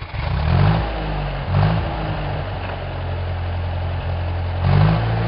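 Large engine running at a low, steady speed, revving up briefly three times.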